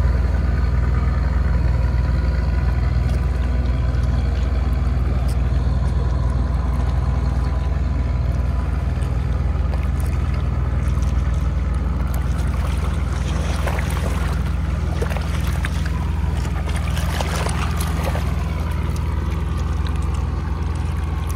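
A boat engine running with a steady low drone. From about two-thirds of the way in, floodwater waves splash and wash against a muddy riverbank.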